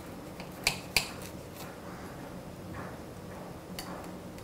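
Kitchen knife slicing through a baked loaf cake on a plate: soft scraping strokes and a few sharp clicks, the two loudest within the first second.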